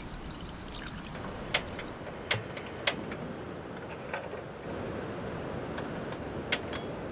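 Two-burner camp stove's gas burners running with a steady hiss that grows louder a little over halfway through, as a burner is turned up. A few sharp metallic clicks and knocks from the pots and the stove.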